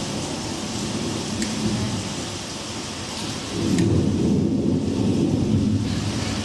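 Thunderstorm sound effect, the backing track for a rain dance: steady rain hiss with a deep rumble of thunder that swells about three and a half seconds in.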